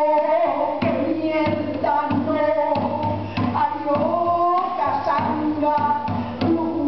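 A woman singing a wavering, sustained melody, accompanied by a hand drum struck with the hands in a steady beat.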